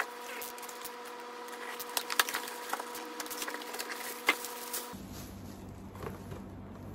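Cardboard boxes and toy packaging being handled: a run of small clicks, taps and crinkles, densest between about two and four and a half seconds in, over a faint steady hum.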